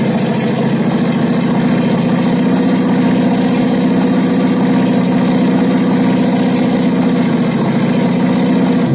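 Panther tank engine sound from an RC model tank's sound unit, running steadily at a low, even pitch. It changes abruptly at the very end.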